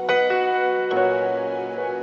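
Soft instrumental background music with sustained piano-like notes, a new chord entering near the start and another about a second in.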